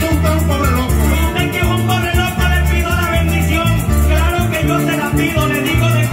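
Llanero joropo band playing: harp and cuatro plucking over electric bass notes, with maracas shaking in a fast, steady rhythm, the accompaniment for a sung contrapunteo.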